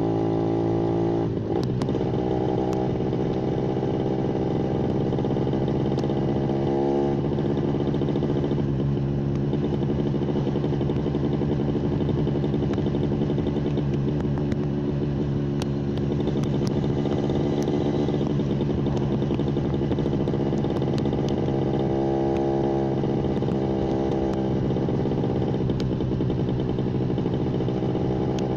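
Yamaha 125ZR's single-cylinder two-stroke engine running continuously, its note stepping down in pitch about a second and a half in and shifting again around seven seconds in, then holding fairly steady.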